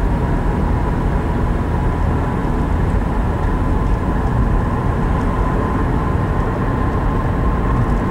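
Steady low rumble of a car driving along, heard from inside the cabin: tyre and engine noise with no change in speed or pitch.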